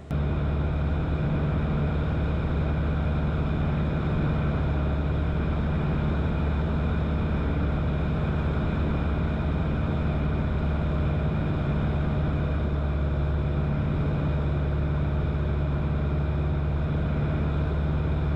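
Steady drone of a Cessna 177RG Cardinal's engine and propeller in cruise flight, heard from inside the cabin, starting abruptly and holding unchanged throughout.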